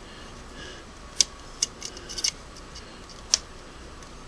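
Scattered sharp clicks and ticks, about six in all, from tool and metal parts on the underside of a Singer 301A sewing machine as its feed-dog height adjustment is worked. The loudest comes about a second in and another about three and a third seconds in, with a quick cluster around two seconds.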